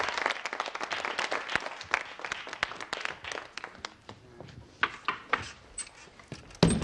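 A small group of people clapping and applauding. The claps thin out and fade over the first few seconds, a few scattered claps follow, and there is a short low thump near the end.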